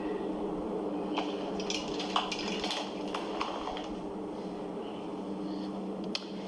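Food containers and packaging handled while a fridge is being organized: light clicks, taps and rustles over a steady low hum.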